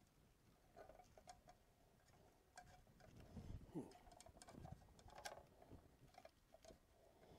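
Faint, scattered light clicks and ticks of pliers and small M3 screws being handled against a 3D printer's metal heatbed.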